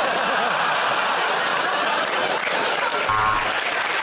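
Studio audience laughing and applauding at a joke, a steady wash of clapping and laughter.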